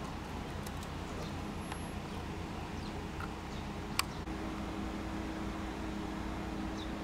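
Steady low outdoor background rumble, with one sharp click about four seconds in.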